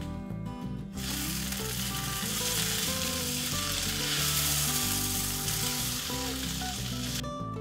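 Diced carrots, celery, green pepper and sliced mushrooms frying in a pot and stirred with a spatula: a loud sizzle that starts about a second in and stops shortly before the end, with guitar music underneath.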